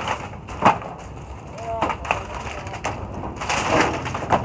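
Wooden slats and framing of a stall being pulled and broken apart by hand during demolition: a sharp crack about two-thirds of a second in, then rattling and scraping of loose boards near the end, with brief voices.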